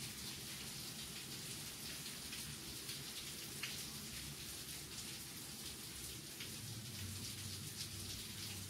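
Steady background hiss with faint, scattered small ticks.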